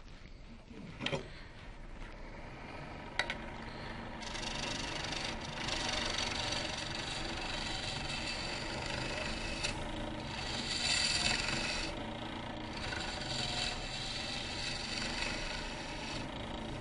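A few light clicks, then from about four seconds in a lathe tool cutting a wet green-wood blank spinning on a Jet Mini lathe: a steady hiss of the cut that swells and eases as the tool is worked along the blank.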